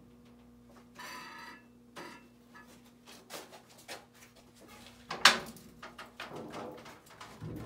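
A thin aluminum trim-coil sheet sliding and rattling against the bed of a manual sheet-metal brake as it is fed in and squared up, with scattered clicks and knocks. One sharp, loud knock comes about five seconds in. A faint steady hum runs underneath until about then.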